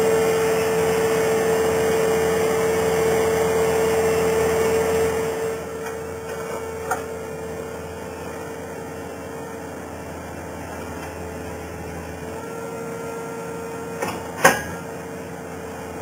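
Skid steer loader with a fork grapple running: a steady engine and hydraulic hum with a constant whine, which drops to a lower level about five seconds in. A sharp knock comes near the end.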